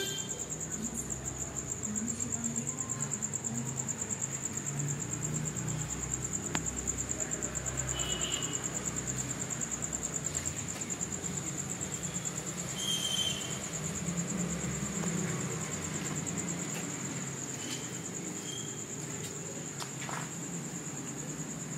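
Crickets trilling steadily at a high pitch in the night.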